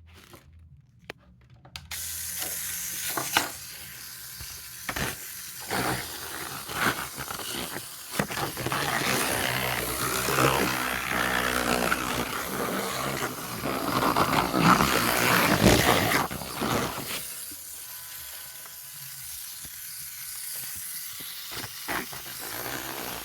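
A Lego-built grinder running: a small electric motor whirring under a rough grinding noise with clicks and clatter of plastic parts. It starts a couple of seconds in, grows loudest in the middle and eases off near the end.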